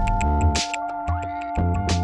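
Electronic background music with a steady beat of hi-hat ticks over held synth chords; the deep bass drops out for about a second midway while a synth sweep rises, then returns.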